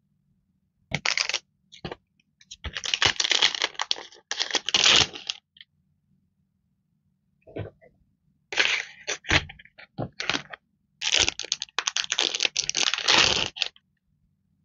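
Clear plastic packaging of sticker sheets and sticky-note tabs crinkling and rustling as it is handled, in several bursts with sharp clicks and taps.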